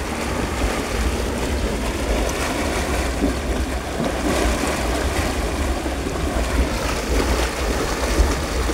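Water gushing and splashing out of a hole in the ground, a steady rushing, with wind rumbling on the microphone.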